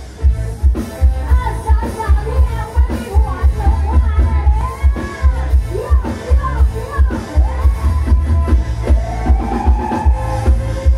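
Live band music played through a mobile stage truck's large loudspeaker system, with a heavy, steady bass beat and a woman singing into a microphone.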